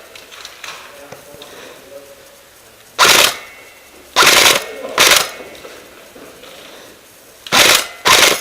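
Airsoft electric rifle firing five short bursts: about three seconds in, then twice in quick succession, then a close pair near the end.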